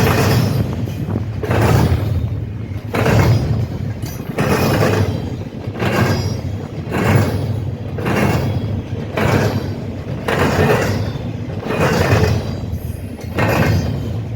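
Train passing slowly, its wheels clanking hard over the rail gaps of a track crossing (a diamond) about once a second, over a steady low rumble of the rolling cars.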